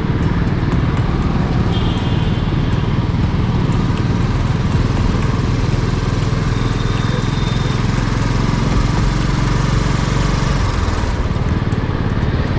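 Royal Enfield 350's single-cylinder engine running steadily at low road speed, heard from the rider's seat.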